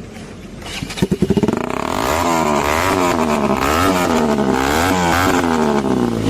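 Single-cylinder KTM 200 Duke engine through an Akrapovic exhaust with its dB killer fitted. It is blipped about a second in, then revved up and down over and over in quick succession.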